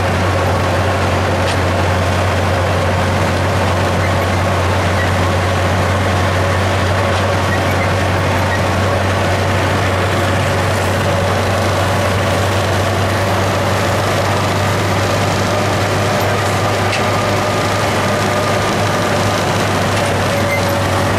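Farm tractor engine running steadily at constant speed, heard from the operator's seat. A deep, even drone carries a steady whine above it.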